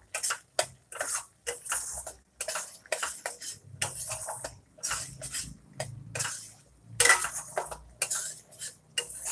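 Spatula scraping and stirring thick spice paste in a stainless steel kadai, in short uneven strokes about twice a second. The masala is being fried down (kasha) until its raw-spice smell is gone.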